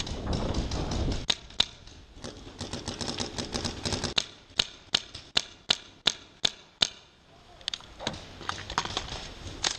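Paintball markers firing: a scatter of sharp pops, with a run of louder single shots about three a second in the middle. A low rumble runs under the first second.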